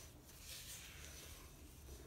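Faint scraping and rubbing of a silicone spatula working crumbly cookie dough against a glass mixing bowl.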